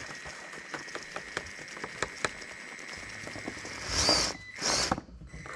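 Traxxas TRX4m crawler's small electric motor and geared drivetrain whining steadily as it crawls up rock, with many small clicks and ticks from the drivetrain and tires. Two louder rasps come about four and four and a half seconds in.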